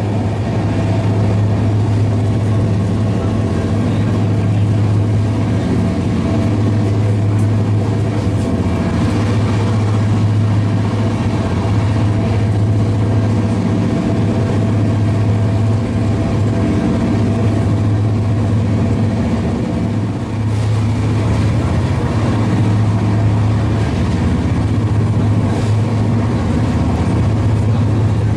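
Steady running noise inside a Shatabdi Express passenger coach travelling at about 150 km/h: wheels on rail with a constant low hum, and a few faint clicks.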